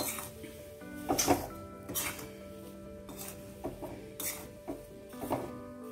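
Spatula stirring peanuts through hot salt in an iron kadhai: a series of short gritty scrapes, roughly one or two a second, the loudest about a second in, over background music.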